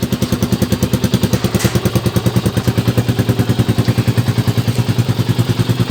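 Motorstar Cafe 400 motorcycle engine idling steadily, with an even, rapid pulse of about ten beats a second and no change in revs.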